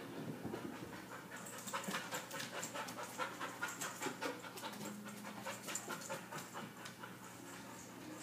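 Dog panting rapidly, several quick breaths a second, starting about a second in. Heavy panting in a dog left alone is a common sign of separation anxiety.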